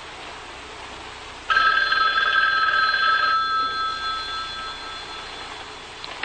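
Telephone bell ringing once, starting about a second and a half in, loud for about two seconds and then dying away. A short click comes near the end as the receiver is lifted.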